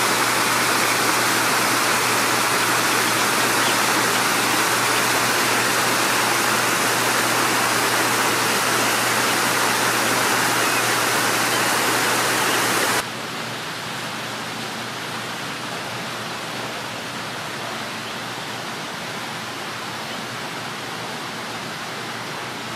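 Water splashing and cascading over rocks in a landscaped artificial stream, a steady loud rushing. About 13 seconds in it cuts off abruptly to a quieter, steady outdoor background hiss.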